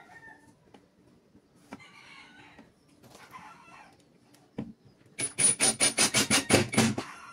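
Cordless brushless impact driver driving a screw into a board. It starts about five seconds in and hammers in rapid, even pulses for about two seconds, then stops.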